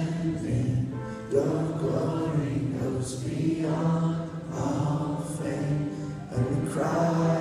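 A live worship band playing a slow song, with sung lines held for a few seconds each and a fresh phrase starting about every two to three seconds, in a reverberant church sanctuary.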